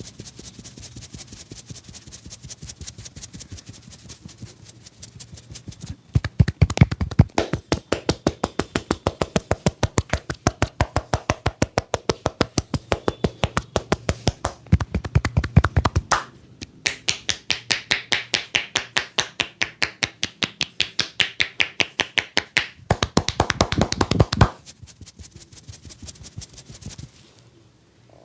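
Percussive hand massage: a barber's hands slapping and tapping on a customer's head or body in a fast, even rhythm of about six strikes a second. The strikes are soft at first and grow loud about six seconds in, with a short break about halfway through. They fade out near the end.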